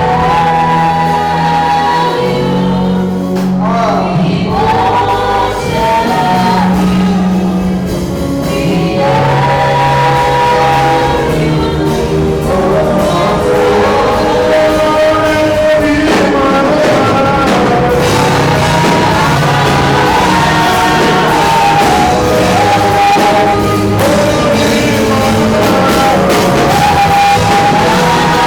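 Live gospel music: sung melody with choir voices over a band with bass, and drums growing busier about halfway through.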